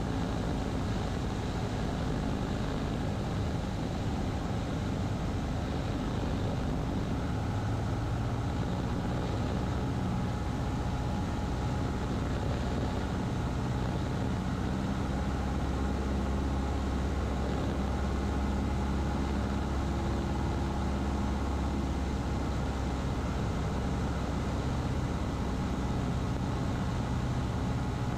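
Cessna 150's Continental O-200 four-cylinder engine and propeller droning steadily in the cabin during a power-reduced descent toward landing. The engine note shifts a few times as the power setting changes.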